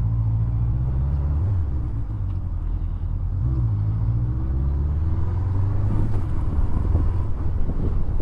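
Honda CBF motorcycle engine running under way with wind noise over it; its pitch dips twice and then climbs as the bike pulls away.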